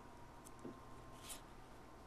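Faint, brief swishes of trading cards sliding over one another, twice, as a pack is handled card by card. Under them is a faint steady high hum.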